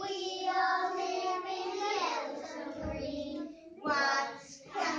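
Young children singing a song together.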